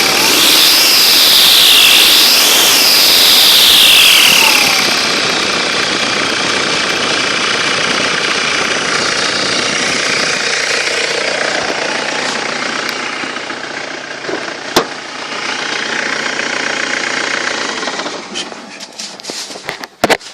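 Turbocharged engine revving, its turbo giving a high whine that rises and falls twice in the first few seconds: excessive whine from a faulty turbo. The engine then runs on more steadily, with a sharp click about fifteen seconds in, and dies away near the end.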